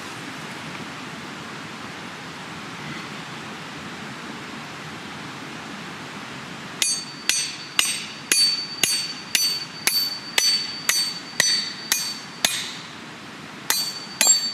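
Hammer blows on a steel splitting tool, about two a second with a bright metallic ring, starting about halfway through and pausing briefly before two more near the end: a wild cherry log being split into billets.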